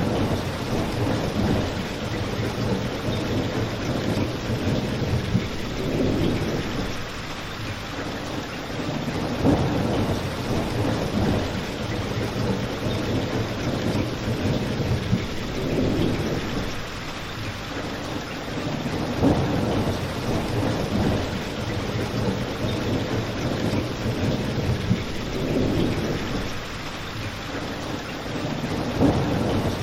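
Steady rain falling outside windows, a continuous even hiss with low swells in level every few seconds.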